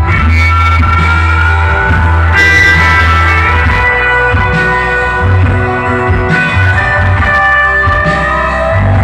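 Rock band playing an instrumental passage between sung verses: guitar carrying the melody with sustained, sliding notes over a heavy, steady bass.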